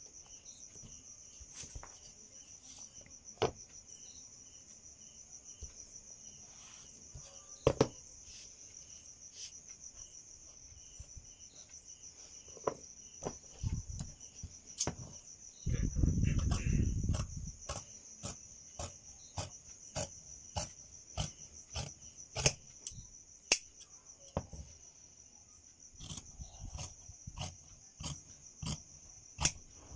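Crickets chirring steadily in the background. From about halfway through come repeated sharp snips of large tailor's scissors cutting through folded cotton fabric, with a brief dull rumble of handling noise just before them.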